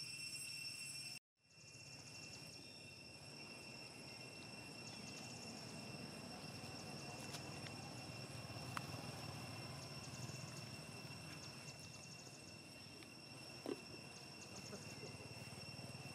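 Faint outdoor ambience: a steady, high insect drone with several short trains of rapid chirps. The sound drops out completely for a moment about a second in, and a single short falling call comes near the end.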